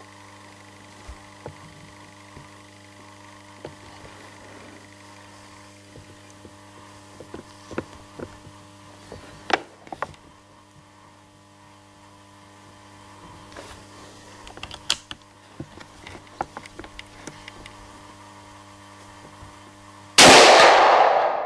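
A single .30-06 rifle shot from a break-action single-shot H&R Handi Rifle near the end, very loud and sudden with a long echoing decay off the concrete walls of an indoor range. Before it, a steady low hum with a few light clicks and knocks.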